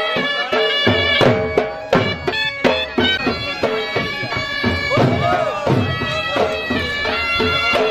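Traditional folk dance music: a reedy wind instrument plays a melody over held drone notes, with a regular drum beat.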